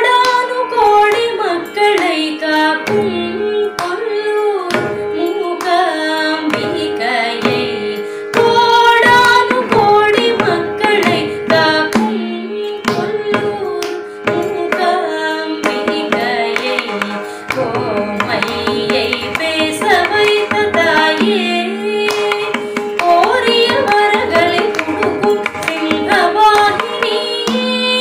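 A woman sings a Carnatic thillana in raga Sivaranjani, set in khanda jathi eka talam (a five-beat cycle). Rapid mridangam strokes accompany her over a steady drone.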